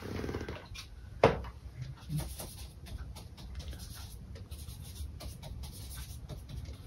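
Paintbrush strokes brushing acrylic paint across a canvas, a run of short scratchy strokes, with one sharp knock about a second in.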